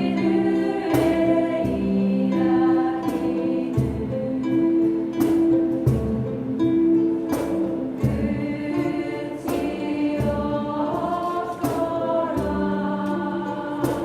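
A group of voices singing a Korean song together, with held notes and a sharp beat about once a second.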